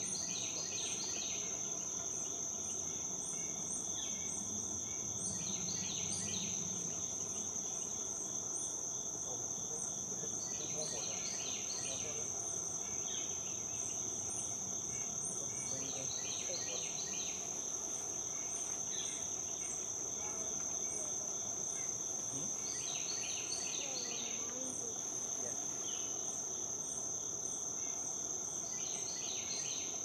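Insects trilling in a steady high chorus, with a short burst of raspy pulses about every five to six seconds.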